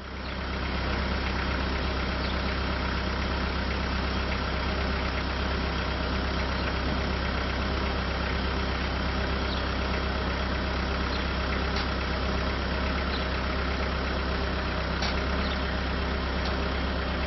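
JCB 515-40 compact telehandler's diesel engine running steadily, an even low drone with a few faint ticks.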